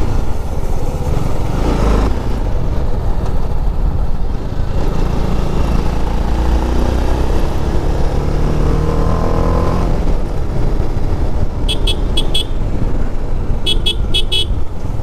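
TVS Apache RR310's single-cylinder engine running at riding speed, rising in pitch as it accelerates through the middle, with wind rush on the microphone. Near the end a horn gives three short toots, then four more.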